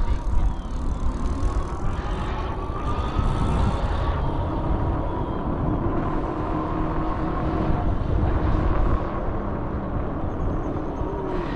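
Electric bike riding along a trail: a steady motor whine that climbs slightly in pitch as it picks up speed, then holds, over heavy wind buffeting on the microphone and tyre rumble.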